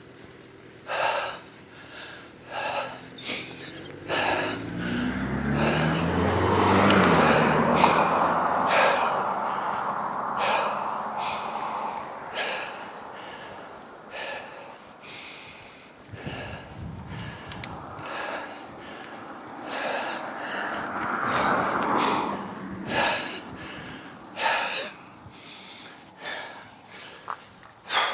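A cyclist's hard, rhythmic breathing, about one breath a second, while riding uphill. A motor vehicle passes, the loudest sound, swelling and fading around seven seconds in, and a second, fainter one goes by about twenty seconds in.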